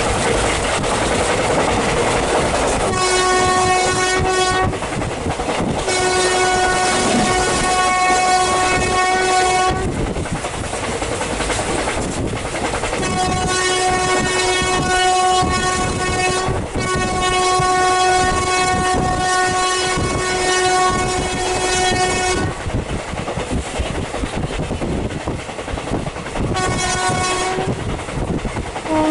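Horn of the WAP-4 electric locomotive hauling the train, sounded in five long blasts at one steady pitch, the longest about five seconds and the last short, over the steady rumble and wheel clatter of a passenger coach running at speed.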